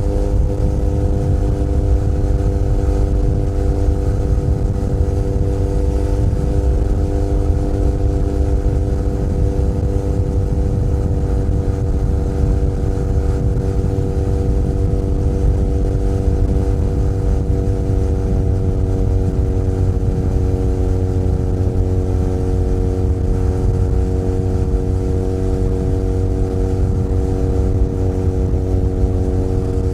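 Benelli Leoncino 500 Trail's parallel-twin engine running at steady cruising revs, with the note held almost constant and sagging very slightly in pitch, over a low rumble of road and wind noise.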